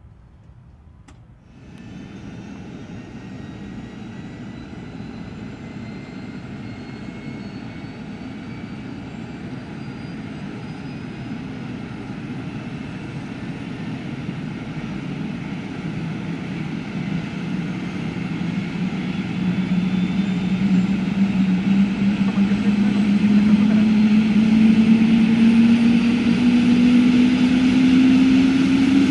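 Airbus H125 helicopter's single Arriel turboshaft engine and rotors spooling up: a turbine whine and a low rotor tone that climb slowly in pitch as the sound grows steadily louder, starting abruptly just over a second in.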